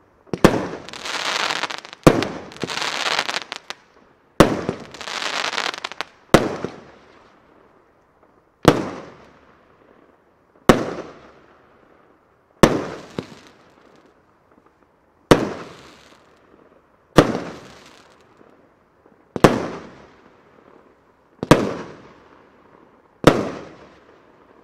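Weco Shock Attack (The Core) 25 mm firework battery firing shell after shell, about one every two seconds. Each shell breaks with a sharp, heavy bang that echoes away. The first three are followed by about a second and a half of dense crackling.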